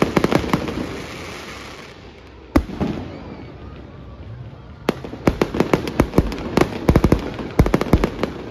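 Aerial fireworks shells bursting: a quick run of sharp bangs, then two single loud bangs about two and a half and five seconds in, then another dense volley of rapid bangs near the end.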